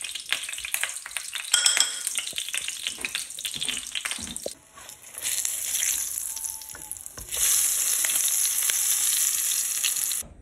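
A floured, egg-washed mullet roe pancake shallow-frying in hot oil in a pan, crackling and sizzling. About seven seconds in the sizzle turns to a louder, steady hiss, which cuts off suddenly just before the end.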